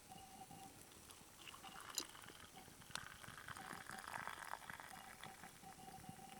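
Faint campfire crackling and hissing, with a few sharp pops, loudest about two and three seconds in. A faint steady high tone comes and goes underneath.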